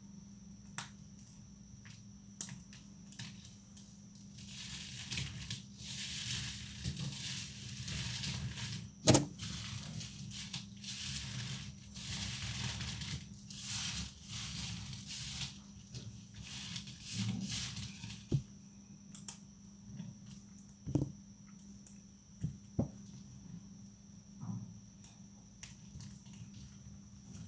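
Thin, dried soap plates snapping and crumbling. First come scattered sharp cracks, then a long stretch of dense crunching and crumbling with one loud snap partway through, then scattered cracks again.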